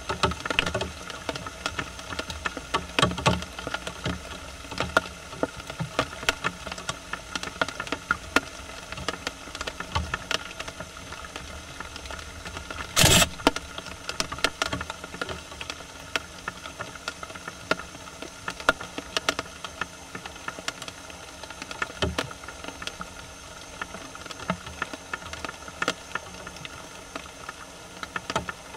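Dry leaf litter rustling and crackling in many small irregular clicks as Japanese raccoon dogs root and forage through it, with one louder rustling burst about halfway through, over a steady hiss.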